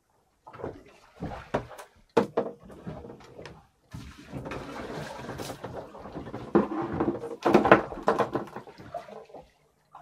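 Handling noises on a small fibreglass fishing boat: a series of knocks and clatters, then a longer stretch of rustling and rattling from about four seconds in, with the loudest knocks near the end.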